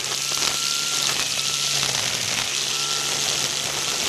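GreenWorks electric string trimmer running at speed, its head spinning four nylon zip ties in place of trimmer line as it cuts grass and weeds. There is a steady low hum and a dense hiss, with a thin high whine that drops in and out.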